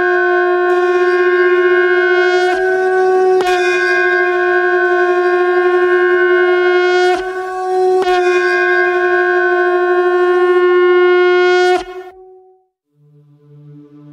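Conch shell (shankh) blown in long, steady blasts on one pitch, three in a row with short breaks between, stopping about twelve seconds in; it is sounded as the puja ends.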